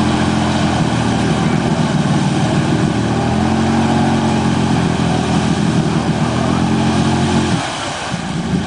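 ATV engine held at high revs under load as the quad churns through a deep mud hole, with a short drop in revs near the end before it picks back up.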